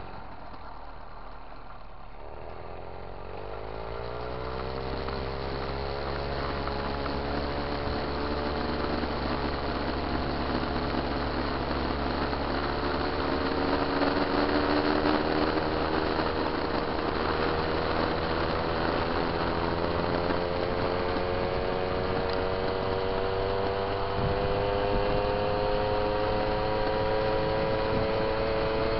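Moped engine pulling away and accelerating: its note climbs over the first few seconds, then keeps rising slowly as speed builds, with wind rushing over the microphone.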